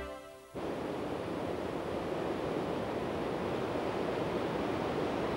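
Soft music fades out in the first half second, then river water cascades steadily in a constant rush of white water.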